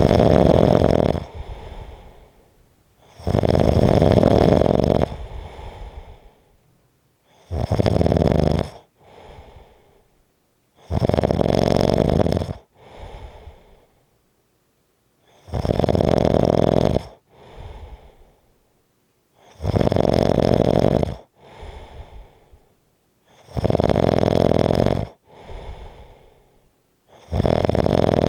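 A person snoring strongly. A loud snore comes about every four seconds, eight in all, and each is followed by a quieter, shorter breath sound.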